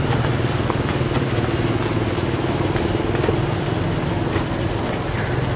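An engine running steadily at idle, a low even hum with a few faint ticks over it.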